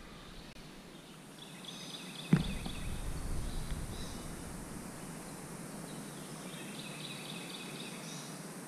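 Songbirds singing in woodland: a run of quick, repeated high notes about a second in and another near the end. A single thump sounds about two and a half seconds in.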